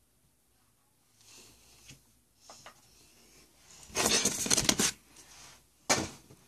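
Pokémon trading cards and their packaging being handled: faint rustles and small clicks, then about four seconds in a loud crinkling rustle lasting about a second, and a short sharp rustle near the end.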